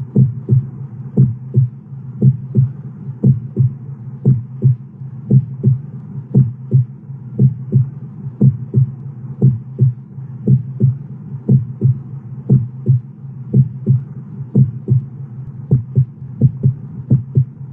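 Heartbeat sound effect: a slow, even double thump (lub-dub) about once a second, over a steady low hum.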